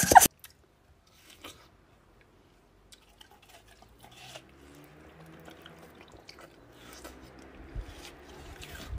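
A loud pitched squeal cuts off a fraction of a second in. Then, after a few quiet seconds, come faint clicks and soft wet chewing: a dog chewing a slice of watermelon.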